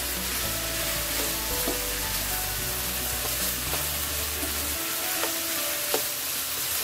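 Beef and broccoli sizzling steadily in a hot nonstick wok as they are stir-fried, tossed with a plastic spatula that gives a few sharp taps against the pan.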